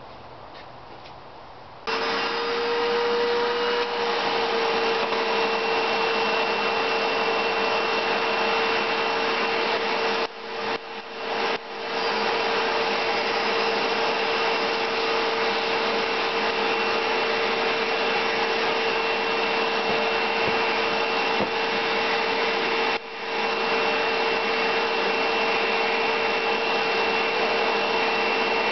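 Vacuum cleaner switched on about two seconds in, then running steadily with a constant whine as its nozzle sucks up spilled toner around a laser-printer toner cartridge. The sound dips briefly a few times, about a third of the way through and again near the end.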